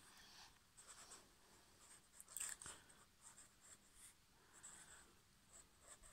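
Faint scratching of a pen on paper, in quick, irregular short strokes as lines are sketched.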